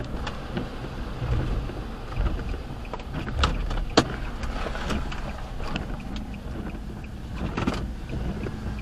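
Road and engine noise inside a moving car: a steady low rumble, with a few sharp ticks and knocks scattered through it.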